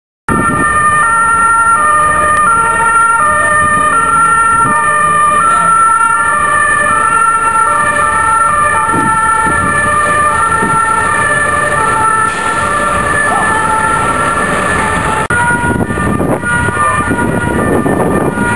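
Emergency vehicle's two-tone siren alternating between a high and a low note about every half second. Near the end, the rushing noise of a vehicle's engine and tyres swells as the siren fades back.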